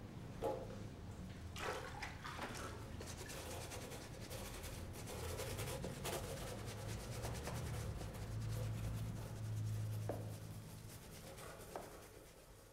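Football boots being cleaned by hand: quick, soft rubbing and brushing strokes, with a low steady hum underneath.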